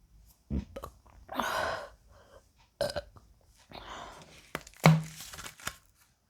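A woman burping up gas from the carbonated Sprite. Several short burps and breaths, the loudest a brief, low-pitched burp near the five-second mark.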